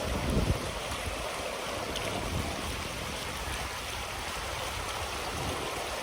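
Steady rush of river water flowing over rapids, with a brief low bump in the first half second.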